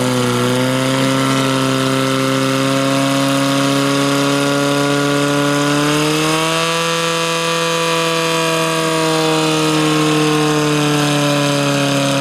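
Portable fire pump engine running steadily at high revs, driving water through the hoses to the spray nozzles. Its pitch rises a little about halfway through.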